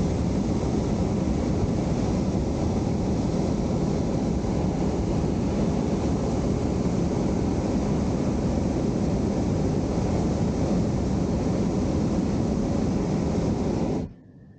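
Hot air balloon's propane burner firing in one long, steady, loud blast that cuts off abruptly near the end.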